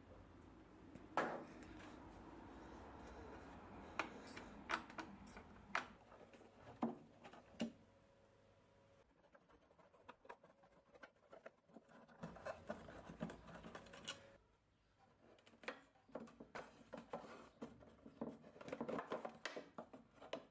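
Faint hand-work on a wooden drawer: a string of sharp clicks and knocks of small metal parts against wood, then stretches of scraping and rustling as a screwdriver works inside the drawer and the wooden dividers are handled.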